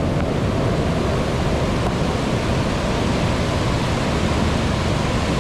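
Whitewater rapids of the Sitkum River rushing over rocks at high flow: a loud, steady rush of water.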